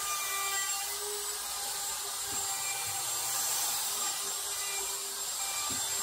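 DeWalt handheld router running at full speed, flush-trimming the edge of a 1/2-inch MDF sheet; a steady high-pitched whine with the hiss of the bit cutting.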